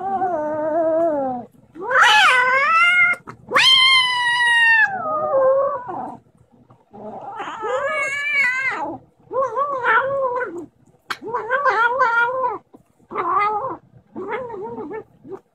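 A kitten growl-yowling over its food in about eight drawn-out, wavering moans a second or so each, the loudest and highest ones near the start: the sound of a kitten guarding its food bowl from another kitten.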